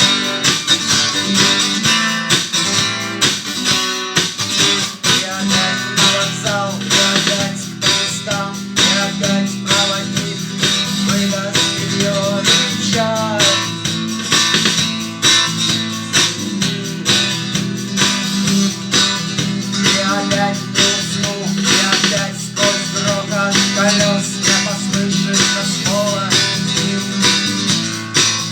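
Acoustic guitar strummed steadily in a rock song, with a melody line wavering in pitch above the chords.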